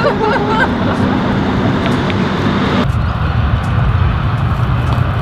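Road traffic running past on a city street, with a brief voice in the first moment. The traffic sound changes abruptly about three seconds in and becomes lower and steadier.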